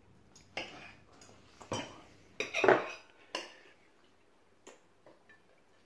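Tableware handled at the table: a handful of short clinks and knocks of a spoon against a plate and dishes, spread over several seconds, the loudest a little over two and a half seconds in.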